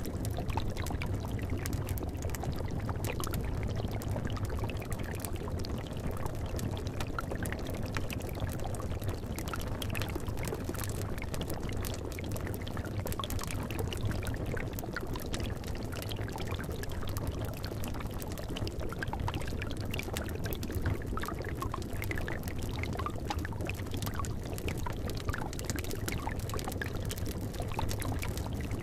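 Liquid bubbling steadily in a cauldron, with many small pops and crackles scattered through it.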